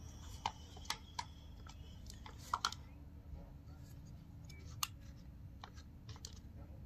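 Sharp, irregular clicks and knocks of plastic and metal sprayer pump parts being handled and fitted together by hand, about seven in all, the loudest pair about two and a half seconds in.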